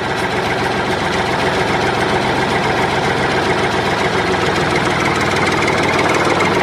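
Tractor engine running steadily at idle, an even, unbroken engine sound.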